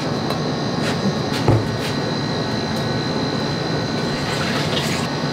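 Steady mechanical whirring hum with a thin high tone over it, and a soft knock about one and a half seconds in.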